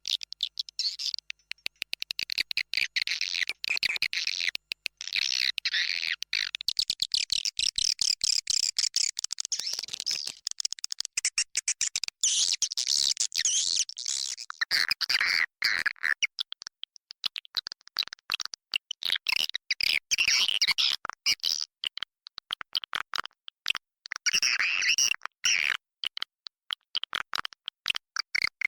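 A flock of swiftlets twittering in a dense, unbroken stream of rapid, high chirps and clicks. This is the kind of swiftlet call recording played to lure the birds into a nesting house.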